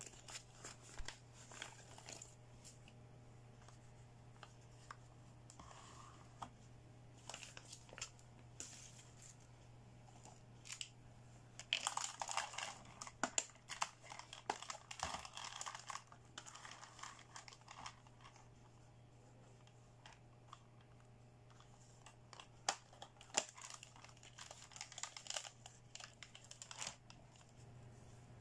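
Clear plastic bag crinkling and rustling as hands handle hard plastic toy accessories inside it, with scattered light clicks of plastic pieces. The crinkling is busiest in the middle of the stretch and again near the end.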